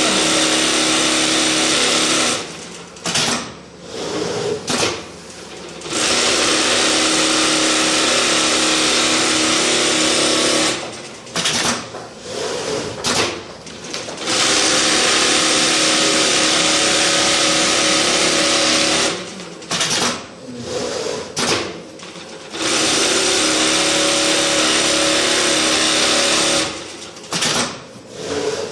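CNC template sewing machine stitching quilting lines through thick down fabric at high speed. It runs in stretches of several seconds and stops three or four times, with short bursts of stitching during each pause.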